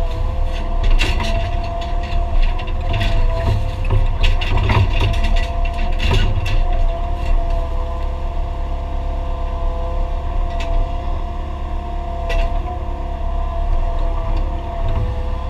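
Mini excavator running under work, heard from inside the cab: a steady engine rumble with a constant whine over it. Scattered knocks and clanks come through, thickest in the first half, with two more near the end.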